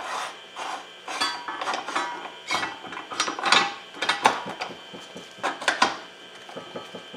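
Steel gears and an axle shaft clinking and scraping as they are handled and seated into a Peerless 930 transaxle's cast aluminium case half, in irregular knocks and rattles.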